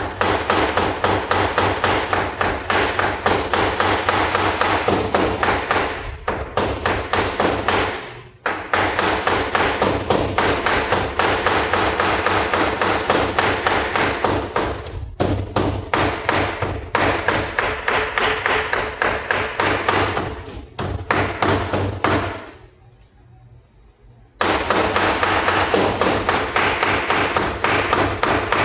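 Cleaver rapidly chopping chicken into keema (mince) on a chopping block: long runs of quick, even strokes, with brief breaks about 8 and 15 seconds in and a longer pause near the end.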